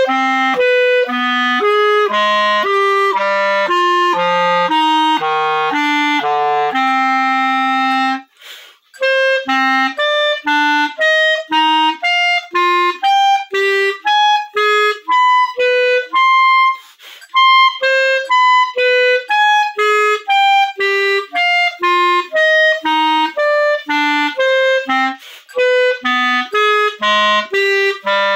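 Clarinet played solo: a long string of separate, detached notes, about two a second, moving up and down in pitch. One note is held about seven seconds in, followed by a short break, with brief pauses again near the middle and toward the end.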